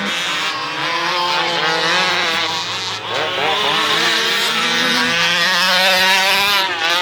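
1/5-scale RC truck's small engine revving up and down, its pitch dipping and climbing again about three seconds in and once more near the end.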